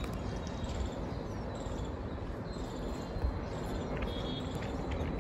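Low, steady rumble of a freight train running away down the track, with a few faint high chirps about four seconds in.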